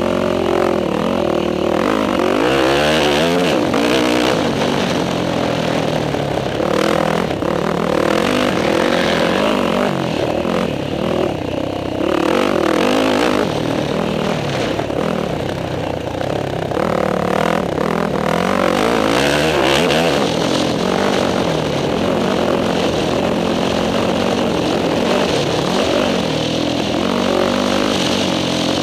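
Motocross dirt bike engine revving hard, its pitch climbing and dropping over and over as the rider accelerates, shifts and backs off through the corners, with wind rush on the helmet-mounted camera.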